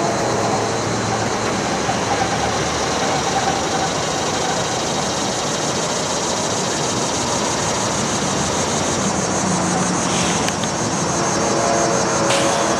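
Steady rumble and hiss of a running vehicle engine, unchanging throughout, with faint steady tones in it.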